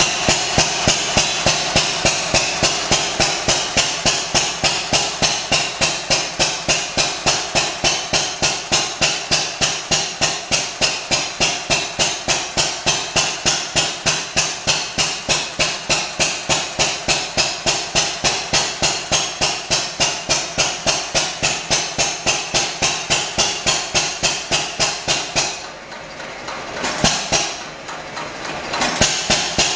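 Hit-and-miss stationary engine running, a steady beat of about three strokes a second. Near the end the beat drops away for a few seconds with only a couple of single strokes, then picks back up.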